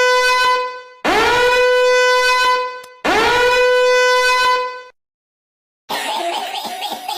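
Meme sound effect of a horn blown in three long, identical blasts, each about two seconds at one steady pitch and scooping briefly up into it at the start. After a short silence, a different, quieter noisy sound starts near the end.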